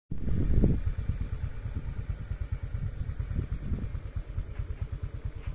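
Motorcycle engine running, a rapid, even low pulsing, loudest in the first second.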